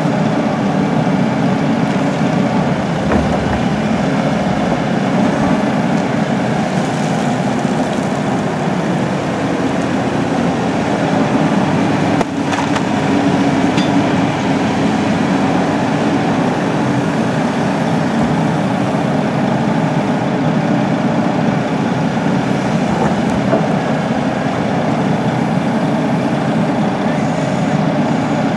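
Cat 320C tracked excavator's six-cylinder diesel engine running steadily under load as it digs a trench and swings to load a dump truck.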